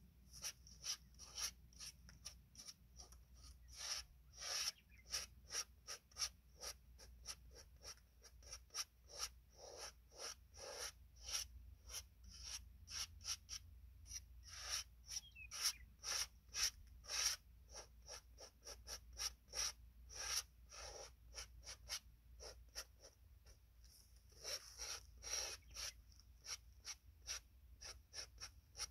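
Oil paint being worked onto a stretched canvas in short scrubbing strokes, about one or two a second, with a brief lull about three quarters of the way through.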